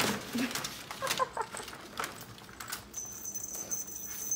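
Ferrets at play: scattered light clicks, clatter and rustling. A thin, steady high-pitched whine starts about three seconds in.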